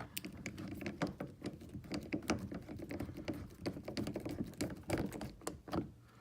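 Irregular light clicks and taps of small screws and plastic door-trim parts being handled and fitted back into a truck door panel.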